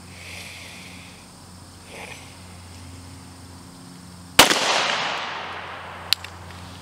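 A single shot from a Glock 41 .45 ACP pistol a little over four seconds in. The report is sharp and loud and fades over about a second and a half, followed by one short, sharp tick.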